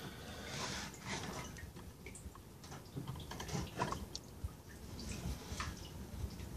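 Plastic fuel pump module clicking, knocking and scraping against the rim of the fuel tank opening as it is tilted and worked out by hand, in scattered small clicks with light rustling between them.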